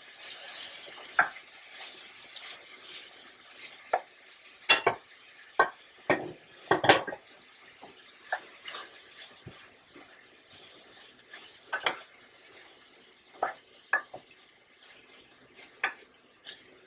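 Wooden spoon stirring sliced peppers, onions and tomatoes in a stainless steel sauté pan: irregular knocks and scrapes of the spoon against the pan over a faint sizzle of the vegetables frying in oil.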